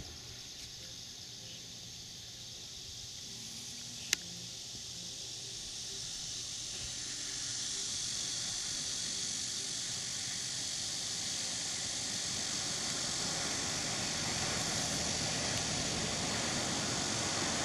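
A steady, high outdoor hiss that grows gradually louder over the first half and then holds, with one sharp click about four seconds in.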